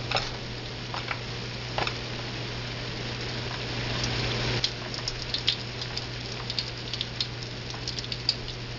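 Batter-dipped kielbasa deep-frying in a skillet of hot oil: a steady sizzle with scattered crackles, swelling briefly about four seconds in, over a steady low hum.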